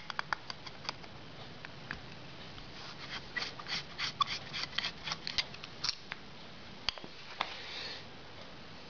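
Screwdriver turning a small brass jet out of a Harley Sportster carburetor body: a run of light metal clicks and scrapes, thinning out after about six seconds.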